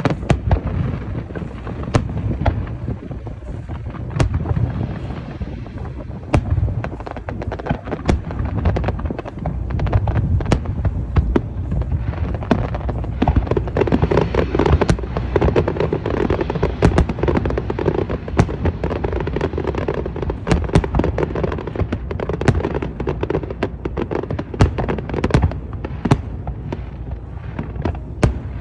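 Aerial fireworks going off in a dense, continuous barrage: many sharp overlapping cracks over a deep rolling boom, growing busier about halfway through.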